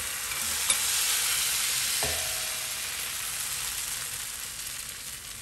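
Banh xeo batter sizzling in hot oil in a skillet, a steady hiss that slowly fades. A light click near the start and a soft knock about two seconds in.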